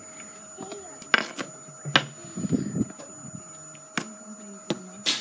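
Several sharp wooden knocks, about five in all: a hurley striking a ball and the ball bouncing on tarmac.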